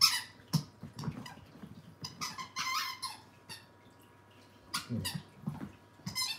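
Scottish terrier puppy playing with her toys on a rug: scattered squeaks, rustles and knocks, with a quick run of squeaks about two and a half seconds in.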